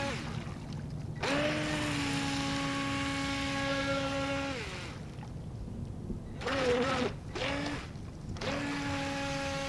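Force1 Velocity RC speedboat's electric motor whining in throttle bursts. A long run of about three seconds ends with the pitch falling as it eases off. A shorter burst wavers in pitch, then comes a quick blip, and another steady run starts near the end.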